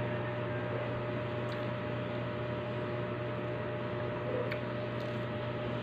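Steady low electrical hum with a soft hiss, and a few faint clicks scattered through it.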